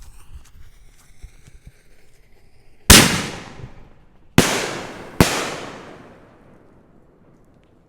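Fireworks from a 6-inch double-break canister shell: a faint fizzing, then three loud sharp bangs, about a second and a half and then under a second apart, each with a long echoing decay. The first bang is the loudest.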